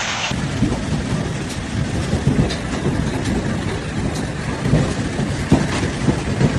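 Heavy hailstorm: a dense low rumble with many quick knocks and thuds of large hailstones striking parked cars and the pavement, a few sharper impacts standing out.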